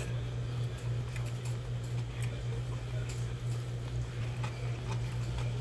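A steady low hum, with faint light clicks of wooden chopsticks against a paper ramen bowl now and then.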